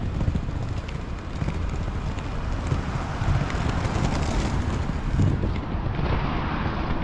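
Inline skate wheels rolling over paving stones, with wind buffeting the camera microphone: a steady, uneven low rumble under a hiss.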